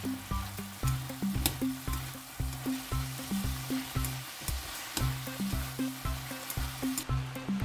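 Chopped cabbage sizzling as it stir-fries in a pan, tossed with a spatula that clicks and scrapes against the pan. Background music with a regular bass beat plays throughout.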